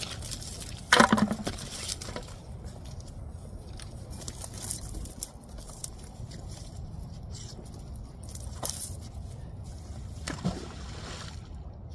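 Water sloshing and splashing at the water's edge while magnet fishing, with one sharp knock about a second in and two smaller ones later on.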